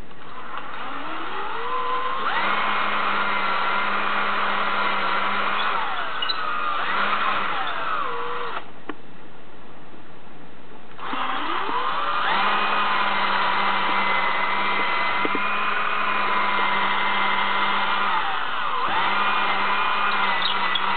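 Electric drill boring the knob holes through a cabinet door: the motor spins up to a steady whine, holds for a few seconds and winds down, in several runs, with a stop of about two seconds near the middle before it starts up again.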